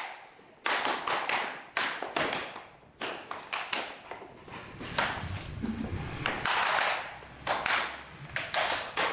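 Laminate floor planks being knocked into place with a hammer to close their click joints: a long string of irregular sharp knocks and taps.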